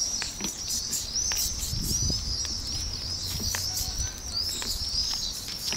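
Small birds chirping continuously, many short high chirps overlapping one another, with a few faint clicks and a low rumble in the middle.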